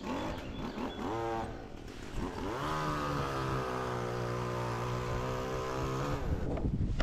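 Top-handle chainsaw revved: a short blip about a second in, then run up and held at steady speed for about three and a half seconds before the throttle is released.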